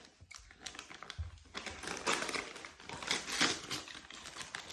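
Gift wrapping being crinkled, rustled and pulled open by hand, in irregular crackling bursts that grow louder midway.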